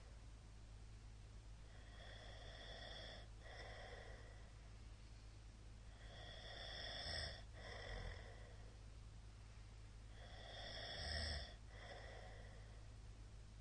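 A sleeping man's soft snoring breaths, three cycles about four to five seconds apart, each an in-breath and an out-breath, with a short low rattle near the end of the second and third in-breaths. The uploader puts his heavy snoring partly down to drink.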